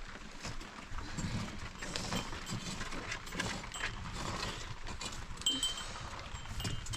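Small livestock bells tinkling now and then, with brief high rings in the second half, among scattered knocks and clatter.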